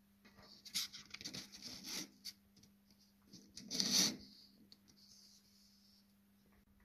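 Paper rustling and rubbing as a hand and a wired switch move over a sheet of paper, in scattered bursts with the loudest about four seconds in. A faint steady low hum runs underneath.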